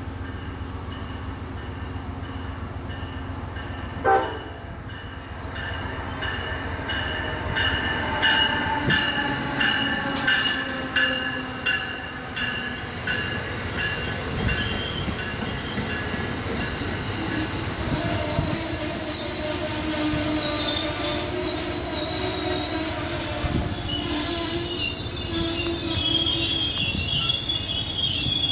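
Train running on rails with a low rumble, a single knock about four seconds in, then steel wheels squealing against the rail in several high, wavering tones from about six seconds in.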